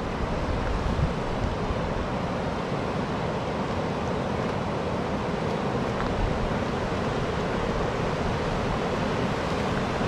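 River water rushing steadily over the full width of a low weir on the old Elbe arm, the spring flow high enough to spill over the whole crest. Wind buffets the microphone in the first second or so.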